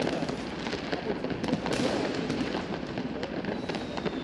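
Many fireworks and firecrackers going off at once: a dense, continuous crackle with sharp bangs scattered all through it.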